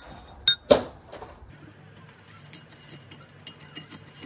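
Metal spoon clinking and scraping in a glass mug of yogurt and cereal flakes. There is a sharp ringing clink about half a second in, a louder knock just after it, then a run of small light clinks.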